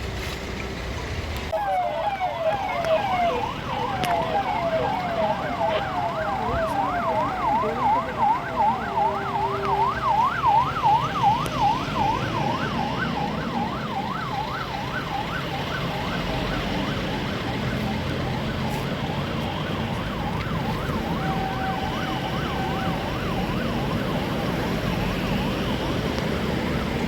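Vehicle siren sounding a fast yelp, its pitch rising and falling about three times a second. It starts about a second and a half in and fades out past the middle, leaving steady traffic noise.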